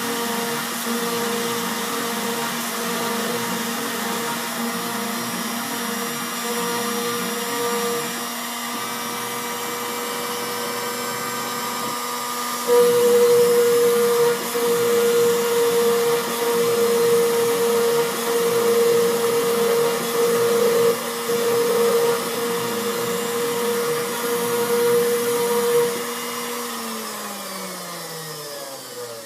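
CNC router spindle motor running with a steady whine. About halfway through it turns louder and rougher, as when the cutter is working the material. Near the end the whine falls steadily in pitch as the spindle winds down.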